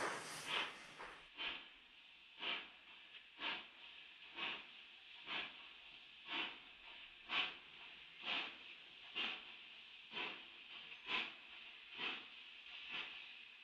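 Narrow-gauge steam locomotive chuffing slowly and faintly, about one exhaust beat a second, each beat a short puff of hiss. A louder steady hiss cuts off about a second in.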